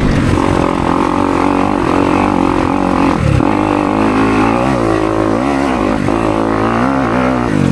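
Kawasaki KX250X dirt bike's four-stroke single-cylinder engine running under load while being ridden, its pitch rising and falling over and over with the throttle.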